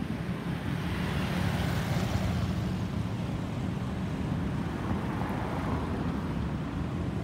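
Jet engine noise of a Boeing 737-800 with CFM56-7B turbofans flying overhead: a steady rushing roar whose pitch slowly falls as the aircraft passes.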